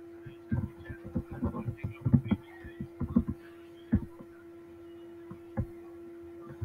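Computer keyboard being typed on: a quick run of key taps for about three seconds, then a couple of single keystrokes, with a steady hum underneath.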